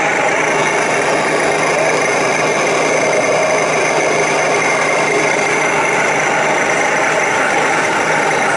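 1/16-scale RC tanks running, a steady engine-like drone from their sound units over the whine of their drive motors.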